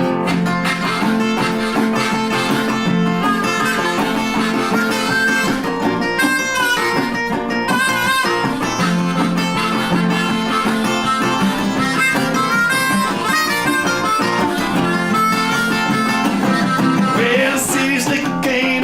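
Harmonica solo with held and bending notes over guitar accompaniment, in an instrumental break of a blues-styled band song.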